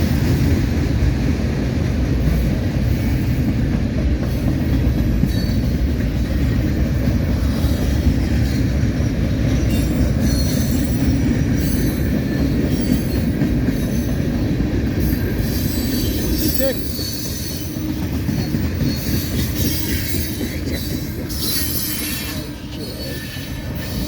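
Freight cars of a CSX mixed manifest train rolling past, a steady heavy rumble of steel wheels on rail. From about halfway through come high wheel squeals and clicks, and the rumble eases a little near the end.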